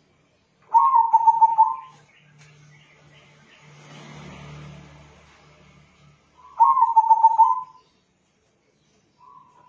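A local crossbred zebra dove (perkutut) cooing: two phrases about five seconds apart, each a quick run of about eight pulsing coos, with a short softer note near the end.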